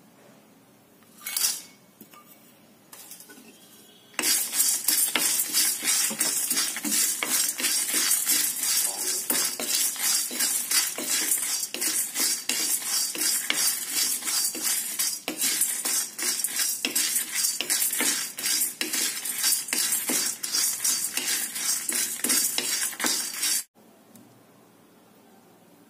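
Wooden spatula stirring and scraping dry chana dal and dried red chillies around a metal pan while they dry-roast: a fast, continuous run of scrapes and rattles from about four seconds in that stops abruptly near the end. A brief rattle about a second in, as the chillies are tipped into the pan.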